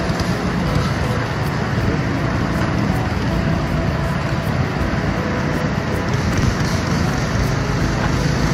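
Fast-flowing river running over rocks and riffles: a steady, unbroken rushing of water.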